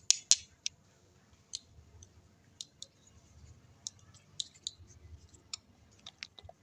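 Slime being pressed and worked by hand, giving off sharp, irregular clicks and pops. The two loudest come right at the start, and scattered softer ones follow.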